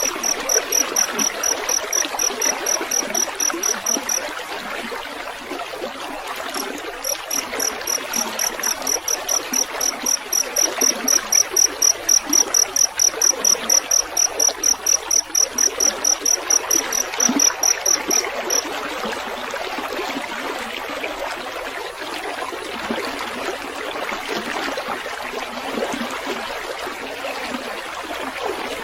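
Field cricket chirping in rapid, even, high-pitched pulses over steadily trickling water. The chirping breaks off briefly about four seconds in, resumes, and stops about two-thirds of the way through, leaving only the running water.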